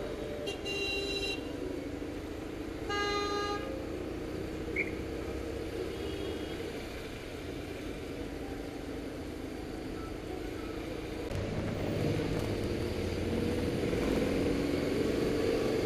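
Steady low running of a BMW motorcycle engine in slow city traffic, with a vehicle horn tooting twice in the first few seconds, the second toot louder and fuller. The engine and traffic noise grow louder about twelve seconds in.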